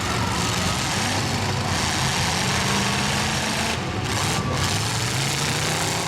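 Engines of several demolition derby trucks running together, a steady dense noise with engine pitches that slowly rise and fall as they rev.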